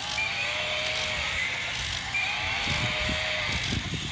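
Many battery-operated walking toy dinosaurs and animals running at once: a steady buzz of their small motors, with faint electronic animal calls from their sound chips drifting in and out.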